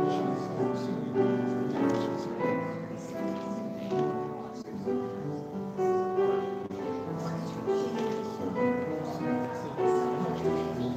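Solo grand piano playing a melody over held lower notes.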